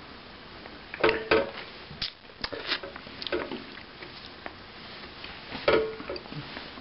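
Hard toasted croutons handled and set down on ceramic plates and in a steel bowl: a scattered series of light clicks and taps, about eight in all, some with a short ring.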